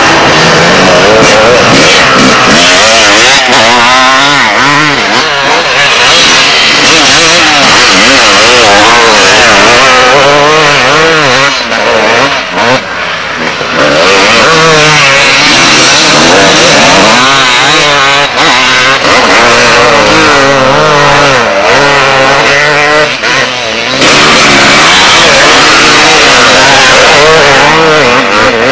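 Several two-stroke motocross bikes revving hard on sand, their engine pitch swinging up and down with the throttle. The sound is loud, easing briefly twice.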